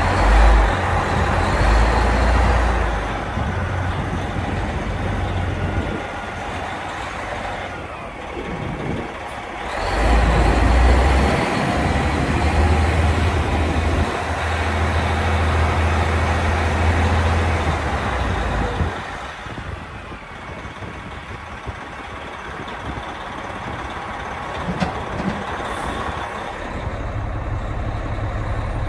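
Oshkosh truck's diesel engine heard from inside the cab as the truck drives, with a strong low hum and road and cab noise over it. It pulls hard near the start and again about ten seconds in, and eases off in between and over the last third.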